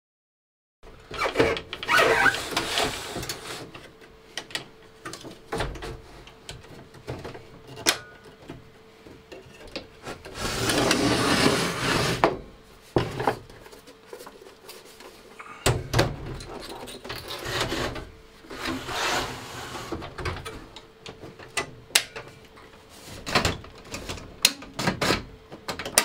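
Hands working parts and cables into a steel Compaq ProLiant 3000 server chassis: rubbing and shuffling with scattered sharp clicks and knocks, the longest stretch of rubbing about ten seconds in.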